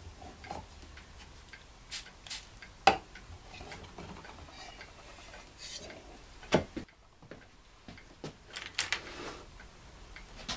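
Fingers working wet raw latex rubber free of a ball-shaped form: irregular small clicks and taps with faint rubbing in between, the sharpest click about three seconds in.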